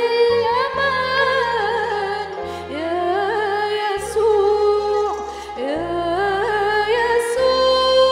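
A woman singing an Arabic song solo with a microphone, in ornamented lines that slide and waver between notes, over held instrumental chords that change every second or two. Near the end she settles on one long held note.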